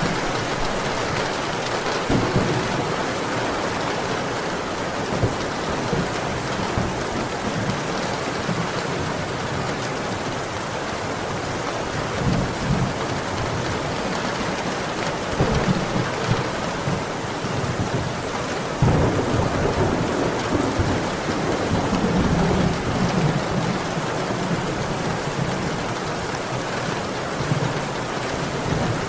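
Heavy rain falling steadily, with low rumbles of thunder swelling up several times, most strongly about two-thirds of the way in.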